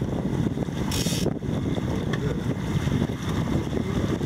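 Wind buffeting the microphone over the rush of water and the steady running of twin Yamaha 115 outboard motors as the boat moves under way, with a brief hiss about a second in.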